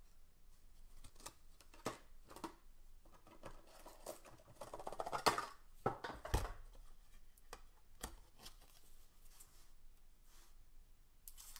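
Faint rustling and scraping of a plastic card sleeve being handled, with scattered soft clicks and a dull tap about six seconds in. Near the end, a sleeved trading card slides into a rigid plastic top-loader with a short swish.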